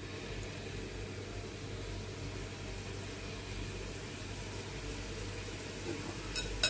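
Hot oil sizzling and bubbling steadily as small rice-flour seedai balls deep-fry in a kadai, over a steady low hum. A couple of short clicks come near the end.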